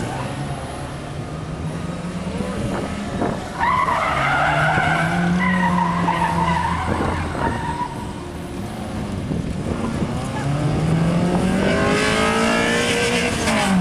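Mitsubishi Lancer being driven hard through a slalom. Its engine climbs and drops in pitch with each burst of acceleration, and the tyres squeal through the turns about four seconds in and again near the end.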